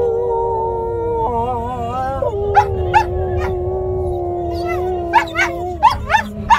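Two Samoyeds howling together in long, held notes, then from about two and a half seconds in breaking into short rising yelps that come faster toward the end. A low road rumble from the moving car lies underneath.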